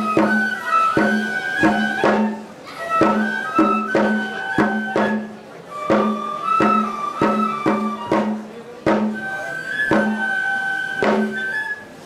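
Traditional Japanese festival music: a flute plays a melody of long held notes over a steady beat of drum strikes, about two a second. The music accompanies a shrine ritual dance and cuts off just before the end.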